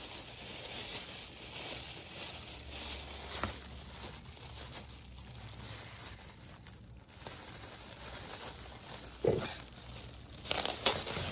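Thin plastic bag crinkling and rustling as it is pulled open and handled, with a few knocks near the end.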